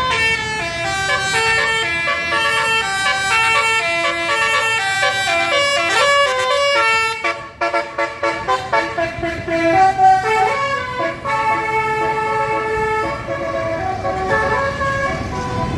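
Bus 'telolet' multi-tone air horn playing a quick tune, its notes stepping up and down with several tones sounding together. About halfway through it breaks off and goes on in short choppy toots.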